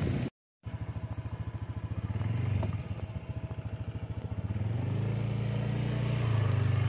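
Motorcycle engine running at low revs with a fast, even throb, getting louder and rising a little in pitch after about five seconds. The sound drops out to silence for a moment near the start.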